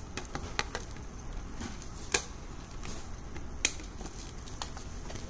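Scattered light clicks and taps of small objects being handled, with two sharper snaps about two seconds and three and a half seconds in.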